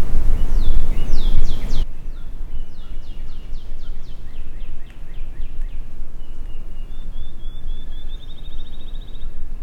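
Wild songbirds singing: runs of quick downward-slurred whistled notes, then a fast trill late on. Low wind rumble underneath drops away abruptly about two seconds in.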